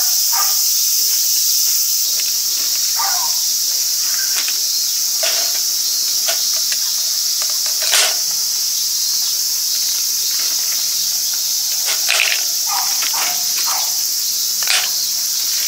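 A loud, unbroken shrill chorus of insects, with a dog barking several times at intervals.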